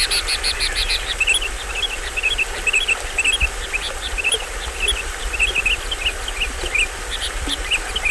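Small forest waterfall running steadily, with many short high chirps from tropical forest birds repeating throughout and a fast trill at the very start.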